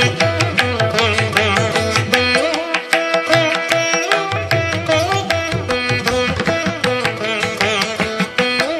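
Instrumental background music in an Indian classical style: quick plucked string notes over a low drum beat. The drum part drops out for about a second and a half in the middle.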